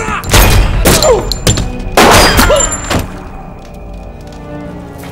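Film gunfight sound effects: a run of loud pistol shots and impacts over the first three seconds, some with short falling-pitch whines. Then a quieter, tense music score with held tones takes over.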